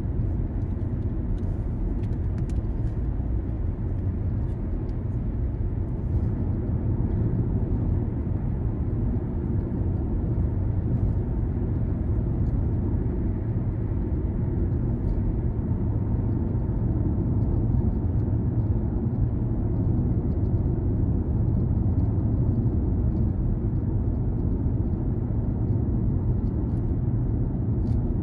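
Car driving along city roads: a steady low rumble of engine and tyre noise.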